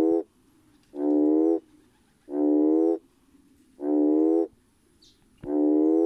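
Male red toad (Schismaderma carens) calling to attract mates: a low pitched call under a second long, repeated steadily about every one and a half seconds, its throat sac swelling with each call.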